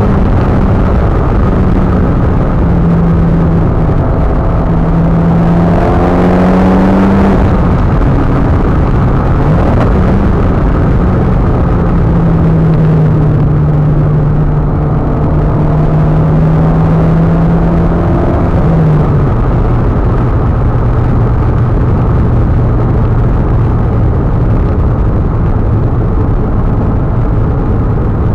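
Mitsubishi Lancer Evolution's turbocharged four-cylinder engine heard from inside the cabin while driving, over a steady rush of tyre and road noise. The engine note climbs about six seconds in, drops back, and a little past the middle steps down to a lower steady drone.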